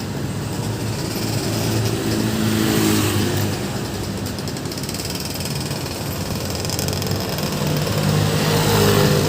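Road traffic: vehicle engines running past, swelling as one vehicle passes about two seconds in and another near the end.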